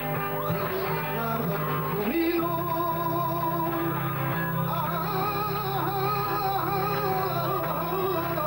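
Flamenco-style song, with a voice singing wavering, ornamented lines over guitar accompaniment.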